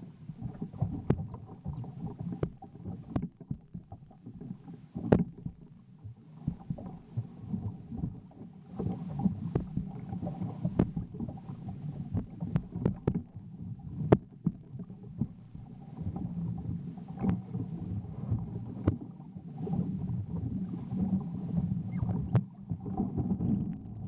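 Jet ski running in rough water: a steady low engine rumble broken by frequent sharp knocks and thumps.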